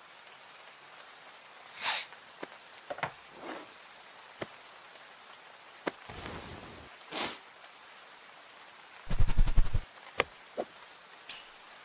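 Faint steady rain hiss with scattered soft sounds, then a quick flurry of loud knocks about nine seconds in. Jingle bells start ringing in short shakes just before the end.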